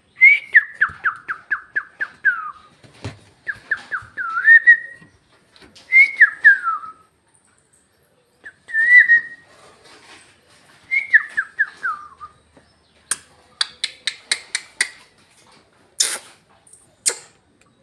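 Pet parrot whistling: a quick run of short falling whistle notes, then a string of separate gliding whistles a second or two apart. Near the end it gives a burst of sharp clicks and short squeaks.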